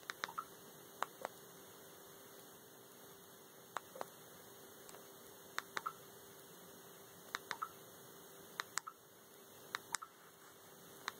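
Sharp clicks of remote control buttons being pressed, mostly in pairs about a fifth of a second apart, every second or two, over a steady low hum.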